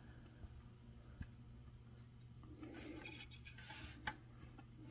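Faint rustling and rubbing of fingers working thin cord and leather strands on a macramé board as a square knot is tied, with a light tick about a second in and another near four seconds.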